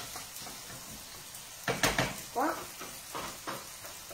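Sliced almonds toasting in hot oil in a small frying pan, sizzling steadily. A wooden spoon scrapes and knocks against the pan as they are stirred, loudest just under two seconds in.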